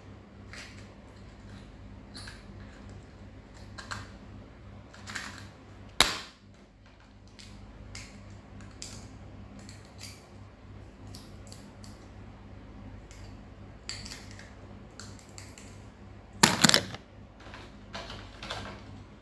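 Small stationery items and their cardboard and plastic packaging handled close up: a scatter of light clicks, taps and rustles. A sharp click comes about six seconds in, and a louder burst of handling noise comes near the end.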